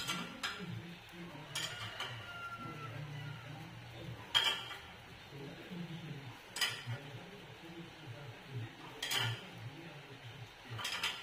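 Hand wrench clinking against steel bolts and the steel frame while bolts are tightened: about six sharp metallic clinks at irregular intervals a second or more apart.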